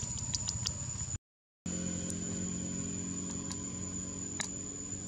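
Outdoor ambience: a steady high-pitched insect whine over a low steady hum, with a few sharp clicks. The sound drops out completely for about half a second, a little over a second in.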